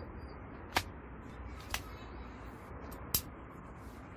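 Three short, sharp clicks from tools being handled and set down beside an old angle grinder, over a steady low background hiss.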